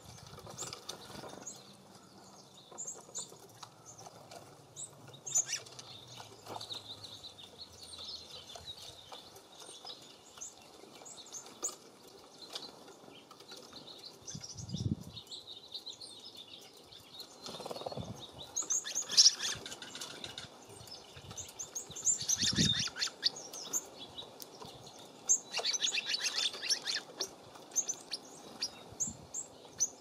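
Small songbirds chirping and twittering, with short high calls scattered throughout. In the second half come a few bursts of fluttering wingbeats as birds fly in and out, the loudest about two-thirds of the way through. Two low thumps fall in between.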